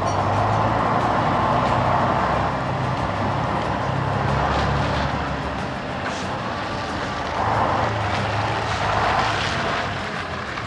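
Diesel lorry with a tarpaulin drawbar trailer driving slowly past, its engine running with a low hum whose pitch shifts up and down. The engine grows louder again about seven seconds in as the trailer passes.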